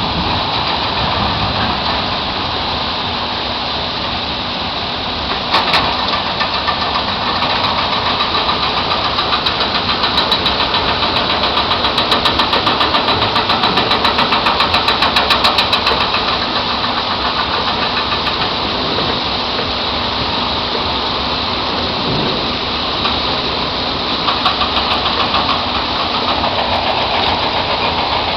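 Heavy rain pouring down in a thunderstorm, a steady loud hiss, with a rapid patter of ticks for several seconds in the middle.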